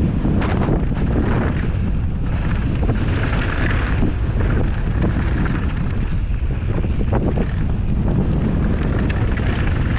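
Wind on the microphone and the rumble of mountain-bike tyres on a dirt trail during a fast downhill run, with a few short clattering knocks from the bike over bumps.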